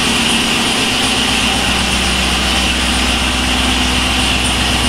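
BMW S85 5.0-litre V10 in an E46 M3 idling steadily, a low even hum, on an interim exhaust with no rear silencer (back box) fitted.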